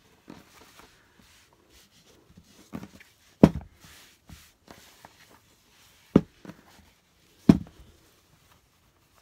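Arrow TT21 manual staple gun firing three times, a few seconds apart, each a sharp snap, with quieter handling noises in between.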